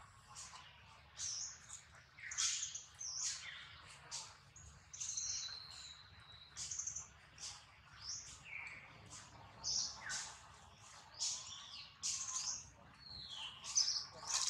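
Small birds chirping and twittering: short, high notes, some falling in pitch, repeating about twice a second, with a brief held whistle about six seconds in.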